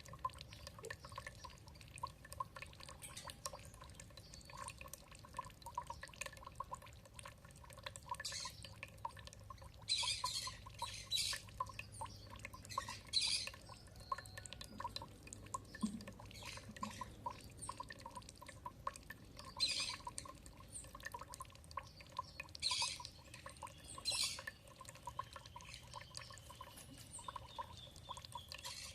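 Water dripping and trickling steadily in quick fine drops, with short harsh bird calls breaking in about seven times, most between about 8 and 24 seconds in, and a faint thin bird whistle near the end.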